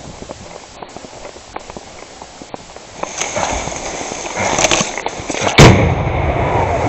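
A single loud bang about two-thirds of the way in, coming after rising crackling noise and followed by a low rumbling hiss.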